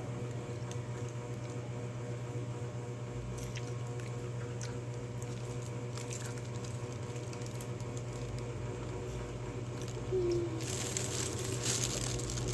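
Faint handling and crinkling noises over a steady low hum, with a louder stretch of rustling near the end.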